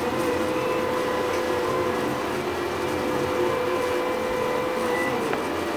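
MendelMax 3D printer running a print slowed to 30% speed. Its stepper motors give a steady whine, with higher overtones, over a steady hiss.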